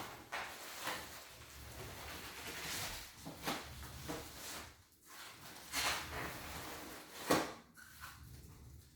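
Packaging being handled during an unboxing: irregular rustling and scraping, with a sharper knock about seven seconds in.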